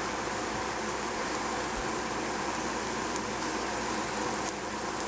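Steady hiss of baby bok choy cooking in a stainless steel pot on a gas stove, with a couple of faint clicks near the end.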